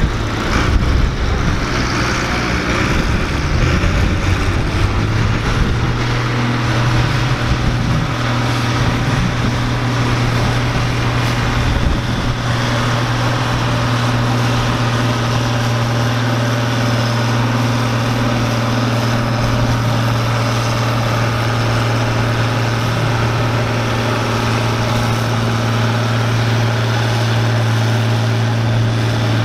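Allis-Chalmers 220's turbocharged six-cylinder diesel engine working under full load as the tractor drags a weight-transfer pulling sled. It is rougher for the first few seconds, then settles into a steady, unchanging drone at constant engine speed.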